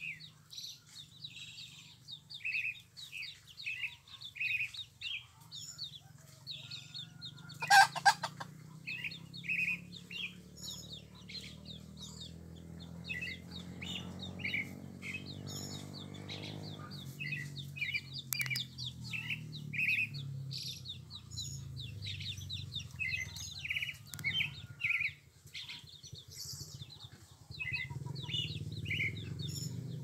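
Sabiá-coca thrush singing: a long run of short whistled notes, one after another, over a steady low rumble that swells in the middle. A loud, sharp sound stands out about 8 seconds in.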